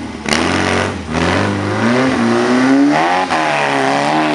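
Off-road trial buggy's engine revving up and down under load as it climbs over rocks, with a short burst of noise about a third of a second in.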